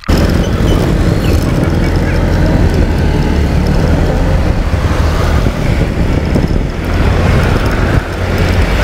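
Motor scooter riding along a road, with steady wind rushing over the microphone, heavy in the low end, and the engine and road noise underneath.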